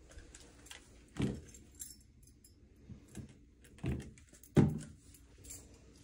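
A handful of sharp clicks and knocks from a hand handling bathroom fixtures, the loudest about four and a half seconds in.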